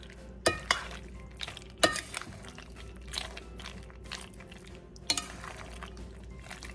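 Metal serving utensils stirring mayonnaise-dressed macaroni salad in a ceramic bowl, with a few sharp clinks of metal on the bowl, the loudest about two seconds in.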